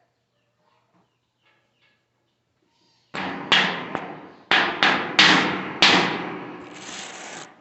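A series of about eight sharp knocks over some three seconds, each dying away quickly, some in quick succession, followed by about a second of steady hiss that stops.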